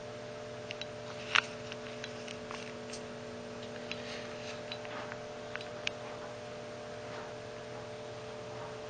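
Vintage Tektronix vacuum-tube oscilloscope running, its cooling fan and electrical hum making a steady drone. A few light clicks come through it, the clearest about one and a half seconds in.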